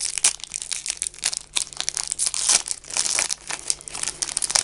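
Wrapper of a Yu-Gi-Oh! booster pack crinkling and tearing as it is opened by hand, a dense run of crackles that gets louder midway.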